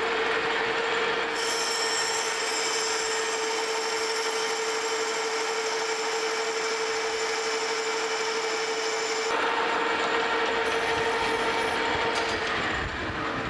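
Metal lathe boring the inside of a bronze bushing on a heavy cut of about 100 thousandths: a steady machine hum with a hiss from the boring tool cutting the bronze. The cutting hiss drops away about nine seconds in as the pass ends.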